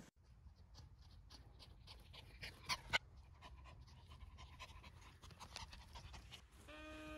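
Maltese dog panting faintly in quick, repeated breaths, with two sharp clicks about three seconds in. Music starts near the end.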